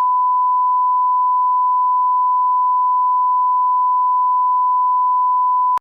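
A steady electronic beep: one loud, pure, high-pitched tone held unchanged for nearly six seconds, starting and stopping abruptly, like a bleep tone laid over the audio.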